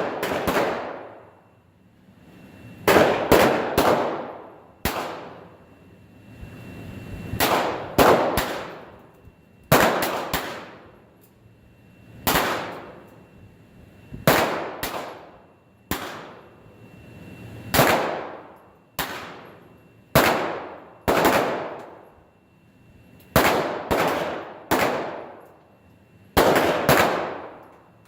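Pistol shots fired in a police pistol combat match, a shot every second or two with some in quick pairs, each trailing off in a long echo.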